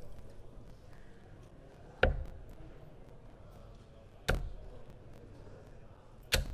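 Three steel-tip darts thrown one after another into a Winmau Blade 6 sisal dartboard, each landing with a sharp thud, about two seconds apart.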